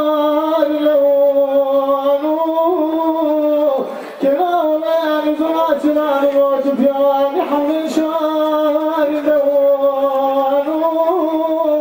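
Male Kurdish dengbêj singer performing a kilam unaccompanied into a microphone. He holds long, wavering notes, with a short breath about four seconds in.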